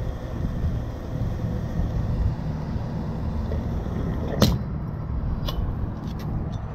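AI-92 petrol running from a filling-station pump nozzle into the fuel tank with a steady low rush, then a sharp click about four and a half seconds in as the nozzle's automatic shut-off trips because the tank is full, followed by a lighter click.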